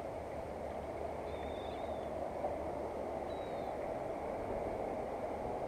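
Steady outdoor background noise, a continuous hiss over a low rumble, with two short faint high-pitched calls about a second and about three seconds in.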